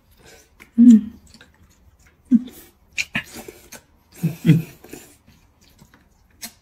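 Two people slurping noodles from bowls of soup and chewing, in several short bursts with pauses between. A few short low hums come through, the loudest about a second in.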